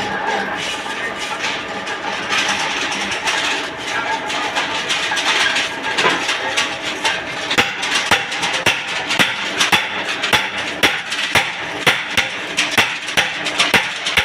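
Machine-shop noise: a lathe running with a steady mechanical hum, joined in the second half by a regular series of sharp metal knocks, about two or three a second.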